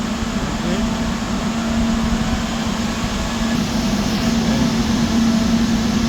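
Steady hum and rush of running server cooling fans, with a constant low tone under an even airy noise.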